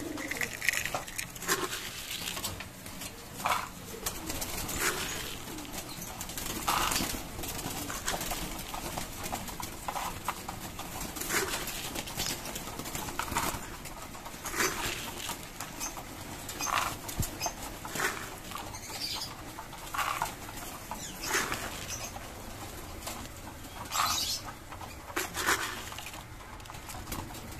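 Racing pigeons in wire breeder cages stirring and flapping their wings, a string of short irregular flutters and scuffles, with some cooing.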